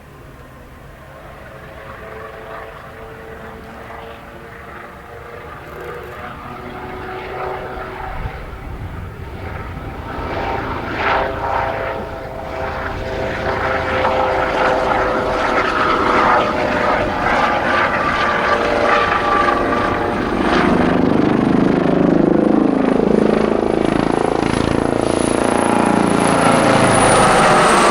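Helicopter flying a display pass, its rotor and engine growing steadily louder as it comes closer, the pitch of its hum slowly shifting. A thin high whine rises over it in the second half.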